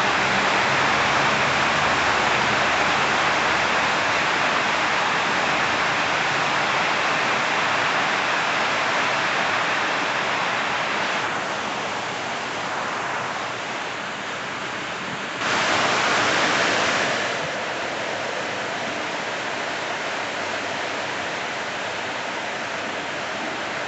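Steady rain falling, with a brief louder rush of noise about two-thirds of the way in.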